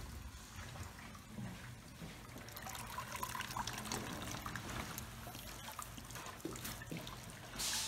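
Soapy bath water trickling and dripping as a goose is lifted out of a tub of dish-soap suds, with many small drips and splashes and a brief louder swish near the end.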